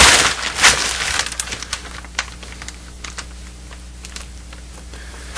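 Plastic tarp crinkling and crackling as it is handled and smoothed, loudest in the first second or so, then thinning to scattered faint crackles.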